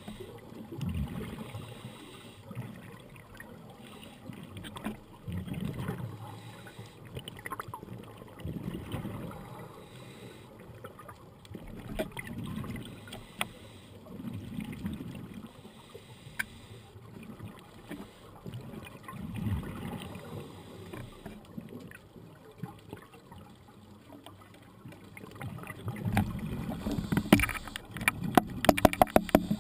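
Scuba diver's exhaled bubbles heard underwater: low bubbling rumbles every few seconds, rising to a louder stream of crackling, popping bubbles near the end.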